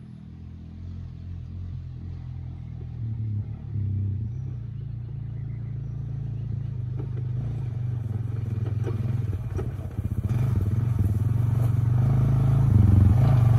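Honda ATV's engine running as it is ridden across grass toward the listener, growing steadily louder as it comes closer.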